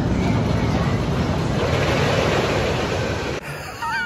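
Wind rushing over the microphone and the rumble of the Eejanaika roller coaster train running on its track, heard from on board this S&S 4th Dimension coaster. The noise cuts off abruptly about three and a half seconds in, and a high, excited voice follows near the end.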